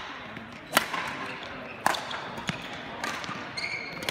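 Badminton rackets striking the shuttlecock in a rally: sharp smacks roughly a second apart, with a short shoe squeak on the court floor near the end.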